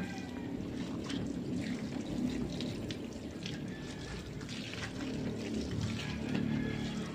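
Water running from a garden hose and splashing steadily as a motorcycle is rinsed.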